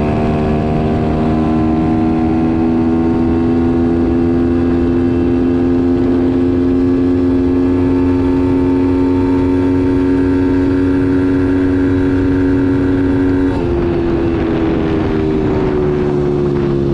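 Pit bike's single-cylinder four-stroke Piranha YX140 engine held at full throttle in a top-speed run, its note climbing slowly as the bike gains speed, over wind rush on the microphone. About three-quarters of the way through the note steps abruptly and then sags slowly.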